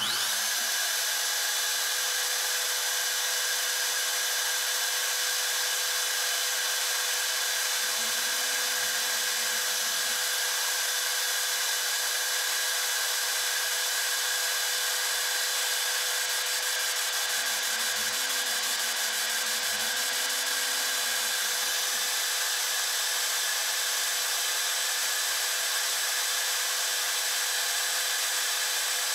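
CNC router spindle running steadily with a constant high whine as its small bit cuts the rosette channel into a guitar top.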